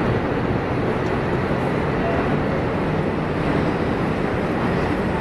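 Steady low din of a Shinkansen station platform: a continuous hum and rumble, with a train standing alongside, and no single sound standing out.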